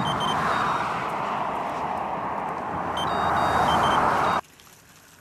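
Road traffic rushing past on a dual carriageway, a steady tyre-and-engine roar that swells twice as vehicles go by. Faint high-pitched beeping tones come twice, and the sound cuts off abruptly about four seconds in.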